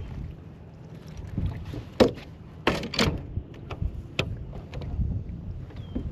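Scattered sharp knocks and clicks aboard a fishing boat over a low steady rumble, the loudest knock about two seconds in and a quick cluster of them about a second later.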